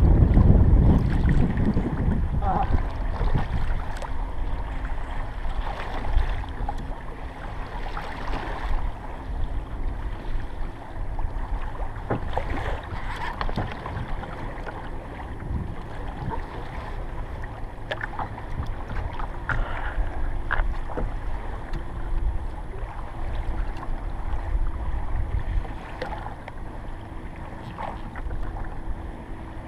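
Water sloshing and lapping against a kayak's hull, with wind rumbling on the microphone, heaviest in the first couple of seconds, and scattered light knocks.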